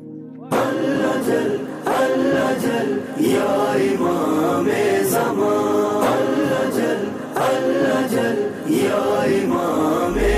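Voices singing a devotional chant in chorus, entering suddenly about half a second in and going on in repeated phrases.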